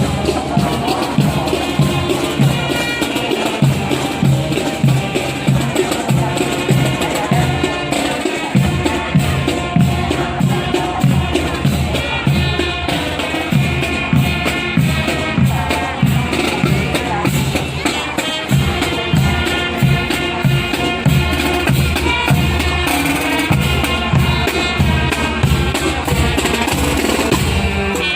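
Music with a steady drum beat, hand percussion and melodic instruments.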